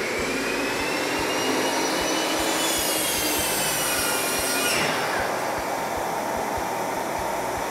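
Wet/dry shop vacuum running steadily together with an electric miter saw, the vacuum switched on automatically by the saw through the iVAC switch box. A high whine comes in about two and a half seconds in and falls away about five seconds in.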